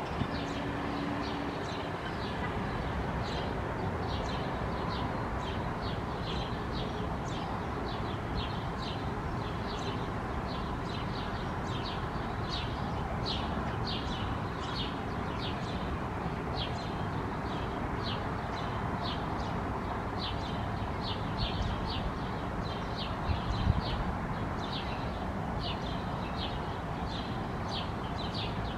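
A small bird chirping over and over, short high chirps about two a second, over a steady low background rumble.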